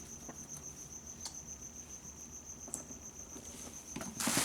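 A cricket trilling steadily with a high, fast-pulsing chirp, with a few faint clicks and a short loud rustling clatter near the end.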